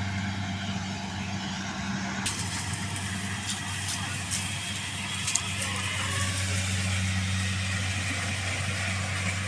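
An engine running steadily at an even speed, a low unbroken hum.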